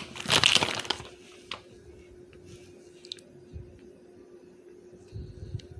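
Plastic bag of shredded cheese crinkling loudly for about the first second as cheese is shaken out, then faint handling clicks over a steady low hum, with a few soft low thumps near the end.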